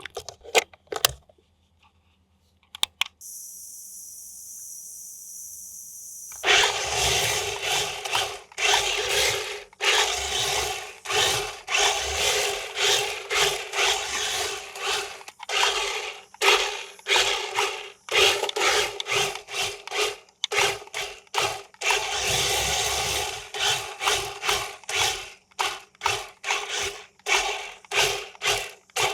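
A few clicks, then a remote-control toy vehicle's small electric motor and plastic gears whirring in short bursts, switched on and off over and over.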